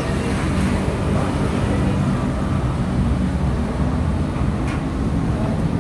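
Steady low rumble of street traffic with a constant hum.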